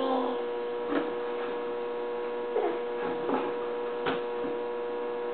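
A steady electrical hum, with a few faint short knocks and rubs, about one second in and again about four seconds in, from small hands handling a hollow plastic jack-o'-lantern pail on a plastic table.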